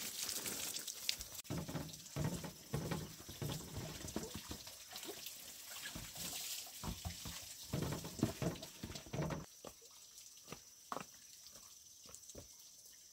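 Water splashing and trickling with irregular knocks and clicks, busier for most of the stretch and thinning out near the end.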